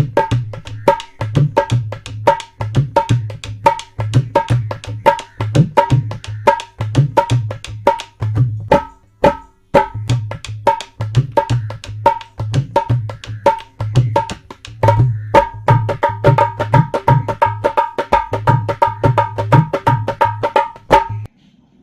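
Background music with a fast, steady percussion beat over a repeating pitched note and bass. The music stops shortly before the end.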